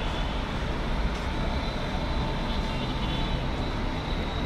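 Steady engine drone with a low rumble and faint thin whines above it.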